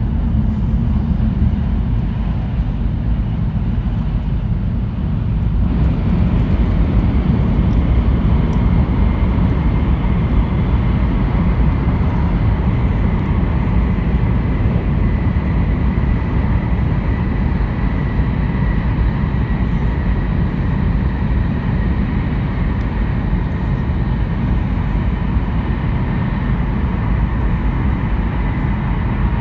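Interior running noise of an E2 series Shinkansen train in motion: a steady, loud low rumble of wheels, track and air. About six seconds in it grows fuller and brighter, and a faint steady whine sits over it.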